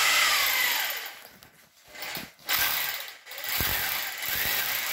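Thin plastic carrier bag rustling and crinkling close up as it is opened and rummaged through, with a faint whine falling away in the first second.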